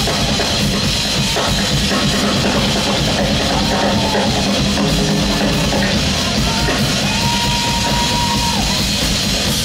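A live rock band playing loud, driven by two drummers on full drum kits with cymbals, and long held notes ringing over the top twice.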